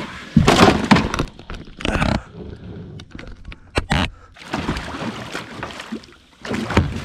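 A hooked tarpon thrashing at the surface beside a boat, splashing water in irregular bursts. There are two sharp thuds a little before the middle.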